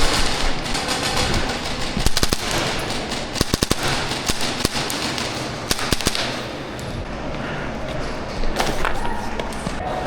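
Airsoft guns firing: a quick burst of several snapping shots about three and a half seconds in, with single sharp shots scattered before and after, over steady background noise.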